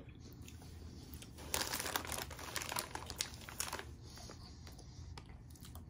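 Crinkling and rustling of a snack wrapper being handled, loudest and busiest from about one and a half to four seconds in.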